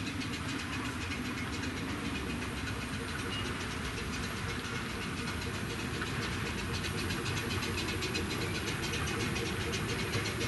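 Miniature steam railway train running on its track: a steady running sound with fine rapid ticking, getting slightly louder in the second half.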